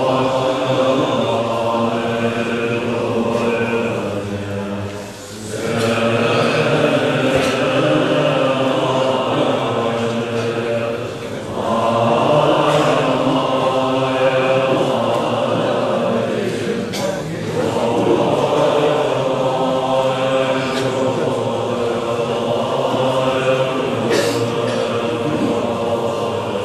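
An assembly of Tibetan Buddhist monks chanting together in one sustained, many-voiced recitation. It breaks off briefly three times, about every six seconds.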